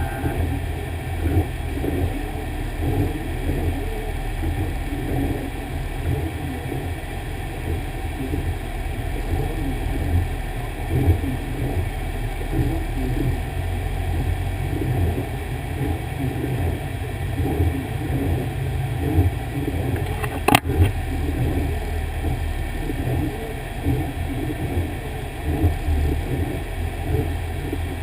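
Fire engine's diesel engine running steadily with a low rumble, with a single sharp click about two-thirds of the way through.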